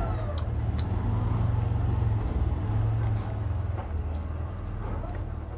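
A low engine hum, steady and fairly loud, easing off toward the end, with scattered light clicks of chewing.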